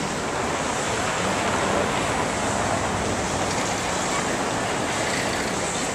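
Steady outdoor street ambience: a continuous wash of traffic noise with wind on the microphone.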